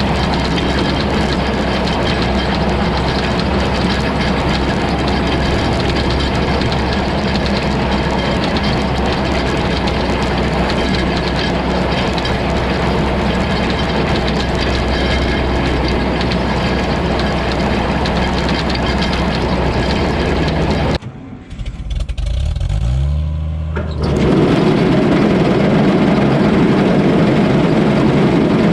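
Old tractor engine running steadily while pulling a working hay baler, with the baler's mechanical clatter. About two-thirds through, the sound drops away abruptly and a rising engine note follows. It then comes back louder.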